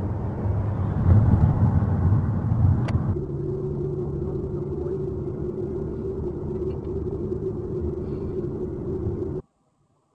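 Road and engine noise inside a moving van's cabin: a loud low rumble that settles about three seconds in into a steadier drone with a hum. It cuts off abruptly near the end.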